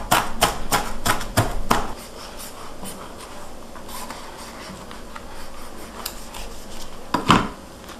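Kitchen knife rapidly chopping onion, garlic and parsley on a plastic cutting board, quick knocks about three or four a second, stopping about two seconds in. Then faint sounds of the knife cutting around an avocado, with one sharp knock near the end.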